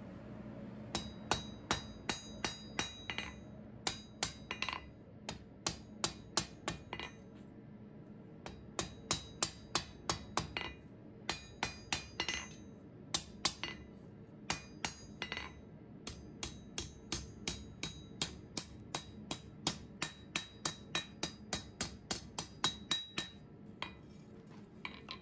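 Hand hammer striking red-hot mild steel flat bar on an anvil, about three blows a second, each with a bright metallic ring. The blows come in runs with short pauses between them, while the end of the bar is shaped into a tong jaw.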